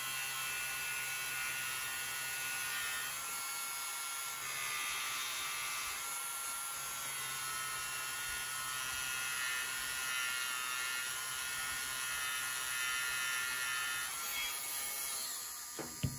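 Small electric motor whining steadily as it spins an HO model locomotive wheel against a polishing wheel charged with fine emery polish. The pitch of the whine shifts a little a few times, and there is a short knock near the end.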